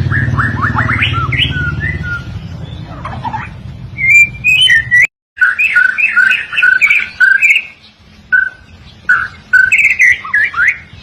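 White-rumped shama singing: clear repeated whistled notes and quick sliding sweeps, delivered in bursts with short pauses. A low hum sits under the first half and stops at a brief dropout about five seconds in.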